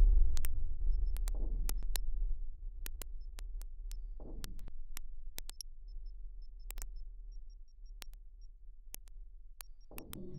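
Live-coded electronic music: a deep sub-bass boom that slowly fades under held synth tones, with scattered sharp clicks, faint high ticks, and two short swells, one about four seconds in and one near the end.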